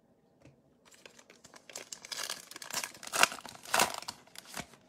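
Foil wrapper of a Panini Prizm baseball card pack being torn open and crinkled by hand. Starts about a second in as a run of sharp crackles, loudest near the middle, then dies away.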